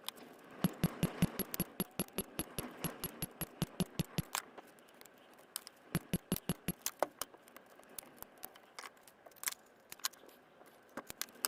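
A rapid, regular run of sharp clicks, about seven a second, for nearly four seconds. A shorter run follows about six seconds in, then a few scattered clicks near the end.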